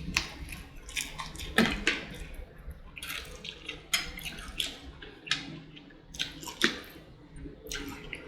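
Close-up eating sounds of fried chicken with sauce being chewed: wet smacks and crackly bites come irregularly, a few every second.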